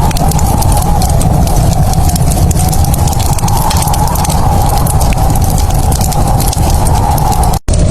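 Wood fire crackling in a fireplace: a dense scatter of small sharp pops and snaps over a steady low rumble. Near the end the sound cuts out completely for an instant, then resumes.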